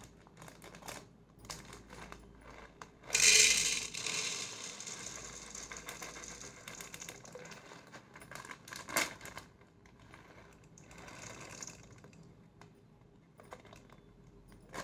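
Black peppercorns poured from a plastic packet into a glass jar: a loud rattling rush starts suddenly about three seconds in and tapers off over a few seconds. A sharp click follows near the middle, then a second, softer pour.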